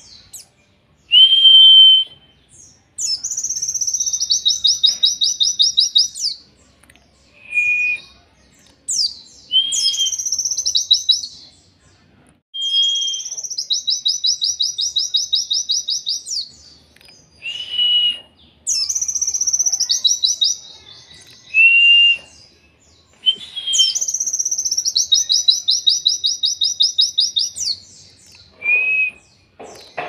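A pleci (white-eye) singing: short, clear whistled notes alternating with long, rapid high trills of about three seconds each, the pattern repeating over and over.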